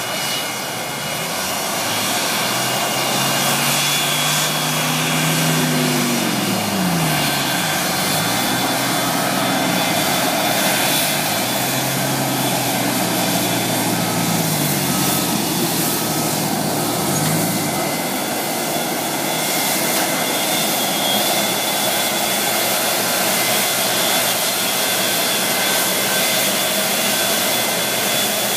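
Boeing 737-200's Pratt & Whitney JT8D turbofan engines running at taxi power, a steady jet noise with a high whine over it.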